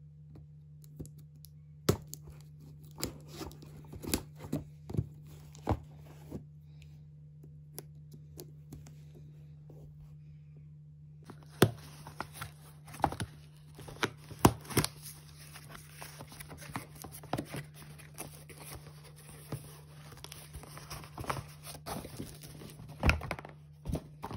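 A cardboard shipping parcel being torn open by hand: packing tape and cardboard ripping and crinkling, with scattered sharp knocks and scrapes. A steady low hum runs underneath.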